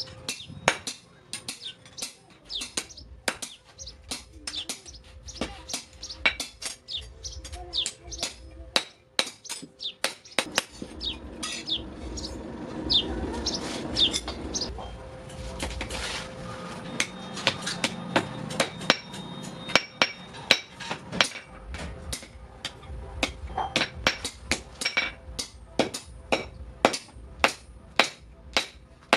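Hand hammer striking metal on an anvil in steady runs of blows, about one to two a second, with a stretch of steady noise in the middle.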